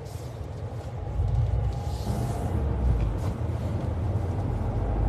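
Car running, heard from inside the cabin: a steady low rumble that grows louder over the first couple of seconds.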